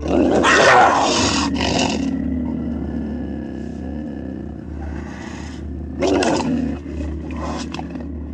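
A large animal roaring: a loud, rough call lasting about two seconds at the start, and a shorter one about six seconds in.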